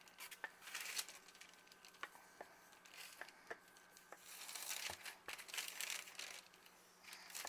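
Faint, irregular swishing and rubbing of a rolling pin rolling out floured biscuit dough on a counter, with a few light knocks as the pin is handled. A faint steady hum sits underneath.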